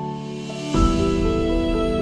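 Background music: sustained instrumental chords, with a fuller, deeper chord coming in under a second in.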